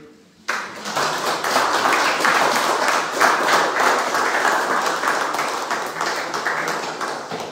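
Audience applauding, starting about half a second in and tapering off near the end.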